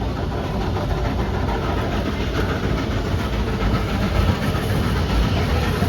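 Steam excursion train running, heard from aboard: a steady low rumble and rattle of the cars.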